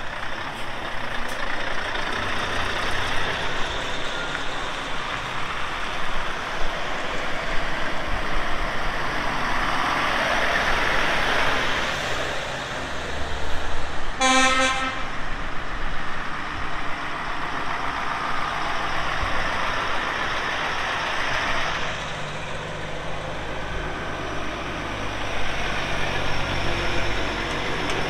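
Lorries pulling away and driving past, a steady wash of diesel engine and tyre noise with a low engine hum in the second half, and one short horn blast about halfway through.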